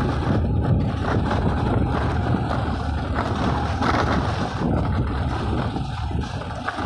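Steady rumble of a motorbike riding over a rough dirt road, its engine and tyres mixed with wind buffeting the microphone.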